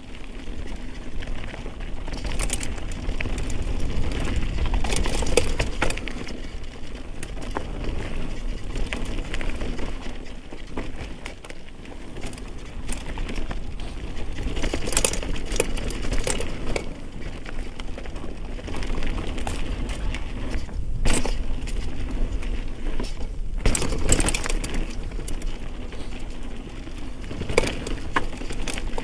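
Mountain bike riding down a dirt singletrail: steady tyre noise and a low rumble, with the chain and frame rattling and frequent sharp knocks and clatters as the bike hits roots and rocks.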